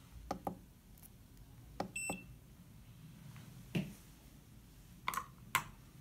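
Buttons on a DDCSV1.1 CNC controller's front panel being pressed, giving a series of sharp clicks, some in quick pairs. About two seconds in, the controller gives one short electronic beep.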